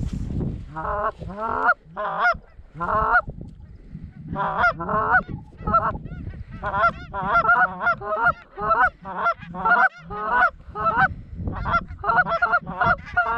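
Canada goose honks and clucks blown on hand-held goose calls to bring in an approaching flock: a few spaced honks at first, then rapid, almost continuous calling from about four seconds in.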